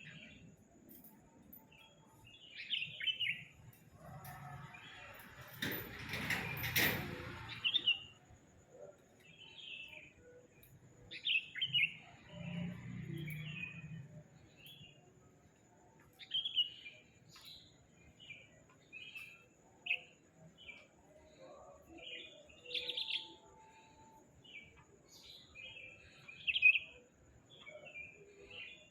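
Sooty-headed bulbul singing: short chirpy phrases repeated every second or two. A burst of rushing noise comes about five seconds in.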